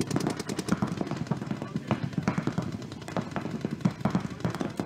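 Paintball markers firing in rapid, uneven strings of pops, several guns going at once.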